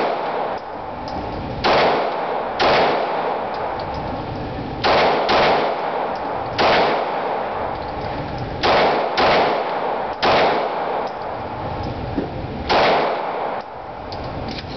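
Semi-automatic pistol firing at an indoor range: about ten shots, one to two seconds apart and sometimes in quick pairs, each with a short echo off the range walls.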